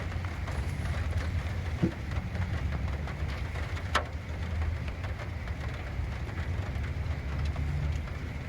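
Steady rain falling over a low rumble, with two sharp ticks about two and four seconds in.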